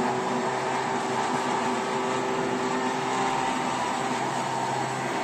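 Electric countertop blender running steadily, its motor whirring as it blends a milkshake in the jar.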